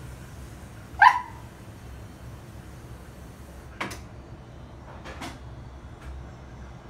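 Siberian husky giving one short, sharp bark about a second in, asking for her ball. Two faint short clicks follow later.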